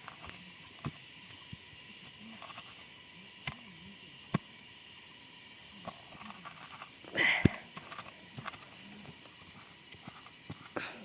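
Scattered light knocks and clicks over a faint steady background, with a short louder burst and a sharp click about seven seconds in.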